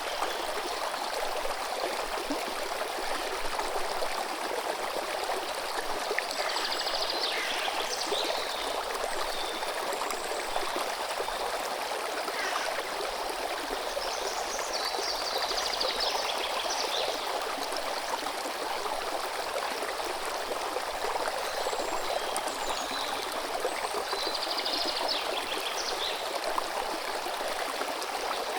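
River water running steadily, a continuous even rush. A bird sings a short high phrase three times over it, roughly nine seconds apart.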